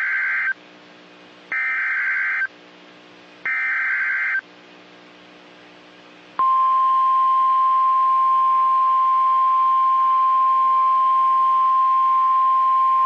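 Emergency Alert System weather alert: three one-second bursts of screeching SAME header data, a second apart, then about six seconds in the single steady 1050 Hz alarm tone starts and holds. This tone marks a warning-level alert, here a tornado warning.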